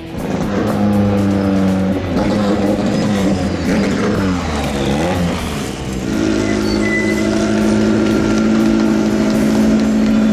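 Turbocharged 2.5-litre flat-four engine of the HKS TRB-03 Toyota 86 time-attack car revving, its pitch rising and falling several times. About six seconds in it settles into a steady note.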